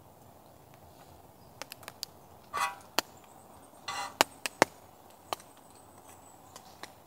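Irregular sharp knocks and clicks of hard objects, a dozen or so, with two brief scraping sounds among them, over a faint steady hiss. A faint thin high tone runs through the second half.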